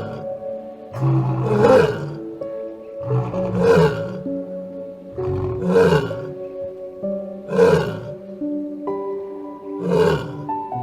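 Soft background music with held chords, over an animal's roar repeated about five times, roughly every two seconds.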